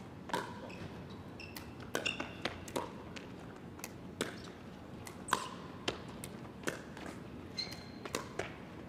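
Pickleball rally: paddles striking a Franklin X-26 plastic ball in a quick exchange at the net, sharp pops coming irregularly about every half second to a second. A few short high squeaks come between the hits.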